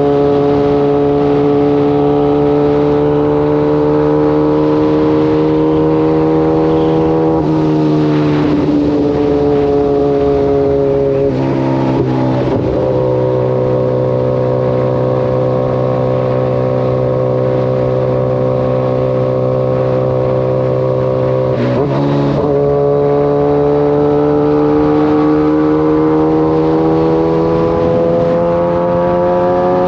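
Kawasaki ZX-14 inline-four motorcycle engine running under way at a steady pitch, with short breaks in the note about 8, 12 and 22 seconds in as the rider changes gear, then rising steadily as it accelerates near the end.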